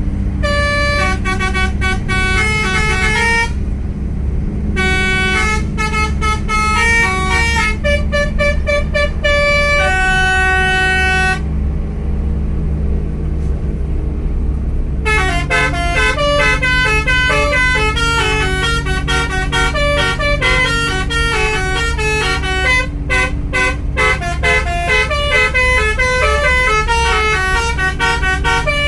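Indonesian bus 'telolet basuri' musical horn playing quick melodic runs of bright horn notes over the bus engine's steady drone. The horn stops briefly about four seconds in and again for a few seconds around the middle, then plays a faster, denser run.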